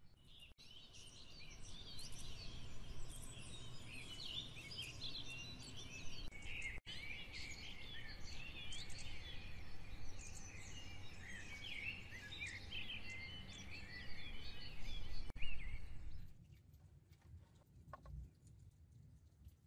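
A flock of many small birds chirping and twittering at once in a dense chorus, over a low background rumble. It cuts off suddenly near the end.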